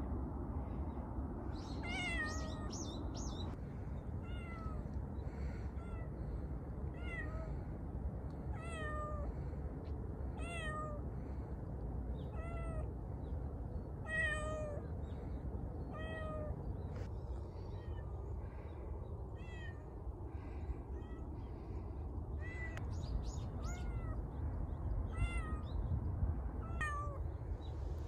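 Feral cat meowing again and again: short calls that fall in pitch, about one every second or two, with a gap of a few seconds past the middle.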